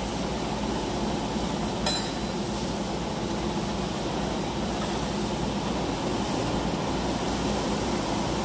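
Steady low machine hum with a single sharp metallic clink about two seconds in.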